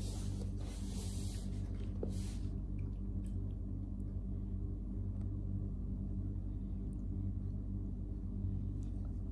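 A steady low hum, with soft rustling from kittens wrestling on a towel in a plastic laundry basket during the first couple of seconds and a few faint clicks later.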